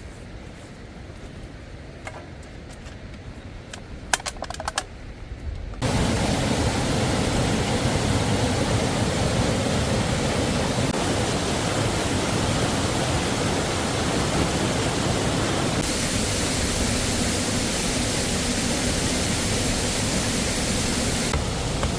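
Waterfall rushing: a loud, steady noise of falling water that starts abruptly about six seconds in, after a quieter stretch with a few light clicks.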